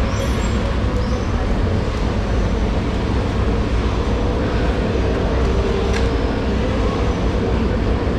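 Steady low rumbling noise with a hiss above it, at an even level throughout; any knife strokes through the tuna are not distinct.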